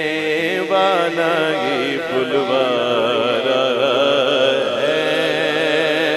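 A man singing a naat into a microphone over a public-address system. He draws out long, wavering, ornamented notes in one continuous phrase.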